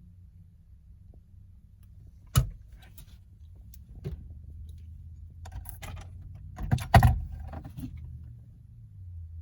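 Mechanical clicks and clunks from a 2001 Ford Expedition's door locks and doors over a low steady hum: a sharp click about two and a half seconds in, a spell of softer rattling clicks, then two loud clunks close together around seven seconds.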